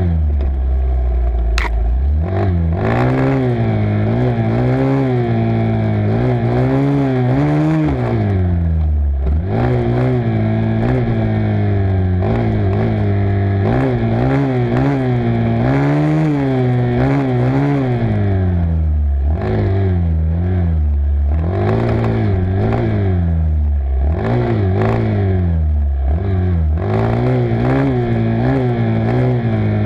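Honda 250 dirt bike engine revving on a rough trail, its pitch climbing and dropping back every couple of seconds as the throttle is worked, with scattered knocks over bumps.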